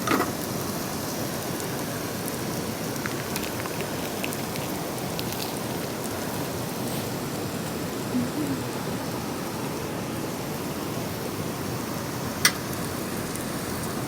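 Steady rain falling, with a few faint taps and one sharp click near the end.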